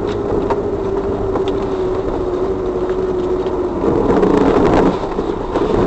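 A car driving, with steady engine and road noise. A droning hum runs through it and changes pitch and grows fuller about two-thirds of the way in.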